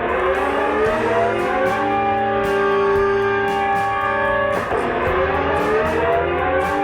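Guitar music: sustained chords ringing, with a new chord struck about two-thirds of the way through, over a steady ticking beat.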